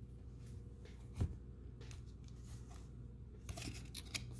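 Trading cards being handled on a tabletop: faint light handling noise, one soft knock about a second in, and a few quick clicks near the end.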